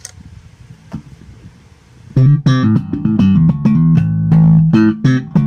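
Electric bass played slap style: after a near-quiet gap of about two seconds, a busy run of thumped and popped notes with sharp attacks. This is the passage played without the compressor evening it out, for comparison with the compressed sound.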